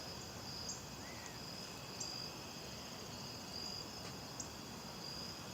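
Faint outdoor insect chorus: a steady high trilling, with short higher chirps about every second and a half.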